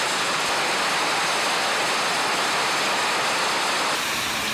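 Hail pounding on a barn roof overhead: a loud, steady roar with no single hits standing out. The sound shifts slightly near the end.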